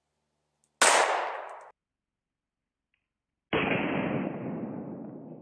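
Two 9mm pistol shots (full metal jacket ball ammo) fired at a stainless steel plate: a sharp crack about a second in, cut off short, then a duller shot about three and a half seconds in with a long fading tail.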